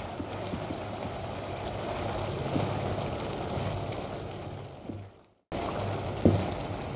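Cream sauce with chicken pieces sizzling in a nonstick frying pan while a wooden spatula stirs it, with one light knock a little after six seconds. The sound drops out for a split second about five seconds in, then picks up again.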